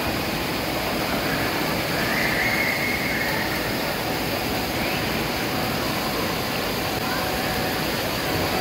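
Steady rushing and splashing of water from play-pool spray jets and toy water cannons.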